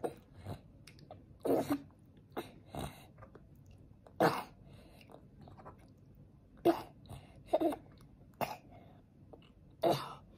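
A toddler with a cold and a blocked nose making short coughs and snuffles while he eats, about nine separate short sounds scattered irregularly, with quiet between them.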